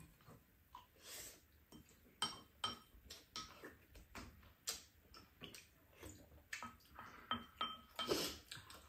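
Spoons and chopsticks clinking and scraping against bowls and a frying pan during a meal: short, irregular clicks, some with a brief ring, with occasional sipping from a spoon.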